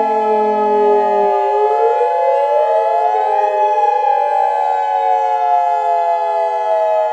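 SiraTone and Modulator electronic outdoor warning sirens wailing together: several overlapping tones that slowly rise and fall at different rates. A lower tone cuts out about a second in.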